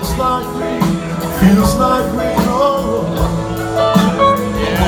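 Live rock band playing a slow song: electric guitars, some notes bending in pitch, over bass and a drum kit.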